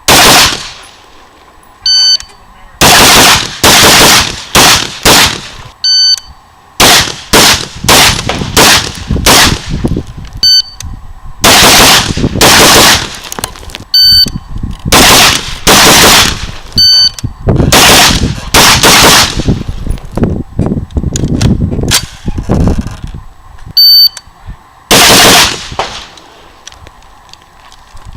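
AR-15 rifle fired in quick strings of several shots at a time, with short pauses between strings. Each string follows about a second after a brief high electronic beep, the start signal of a shot timer.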